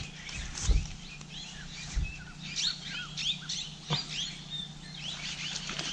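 Many short chirping bird calls, one after another, with a dull thump or two early and a single sharp click about four seconds in.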